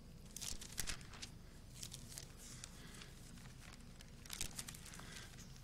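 Soft paper rustles as Bible pages are turned to look up a passage, a handful of short rustles over a low steady room hum.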